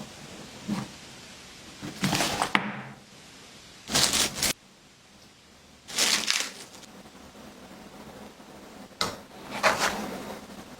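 Unboxing handling sounds: a series of short rustles, scrapes and clicks as a boxed microphone kit and its packaging are opened and handled, in about six separate bursts, with a sharp click about nine seconds in.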